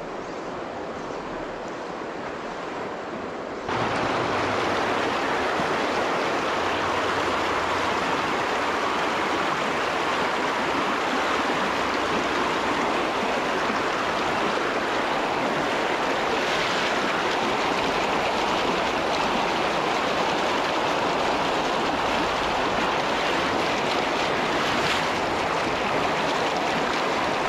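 Freestone stream water rushing over rocks in a fast riffle, a steady rush that gets suddenly louder about four seconds in, where the water runs white around boulders.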